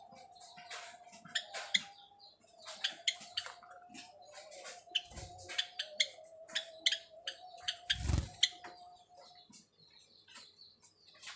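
Java sparrows calling with many short, sharp chirps in quick succession, over a faint steady hum. There are two soft thumps, about five and eight seconds in.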